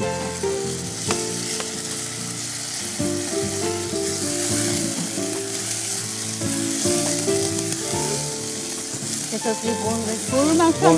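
Raw beef pieces sizzling in hot oil with fried onion, ginger and garlic in a pot, stirred with a wooden spatula as they begin to brown. Background music plays underneath.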